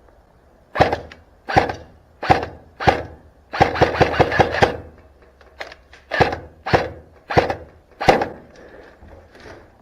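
Airsoft electric rifle firing: several single shots about two-thirds of a second apart, a rapid full-auto burst of about a second, then more single shots.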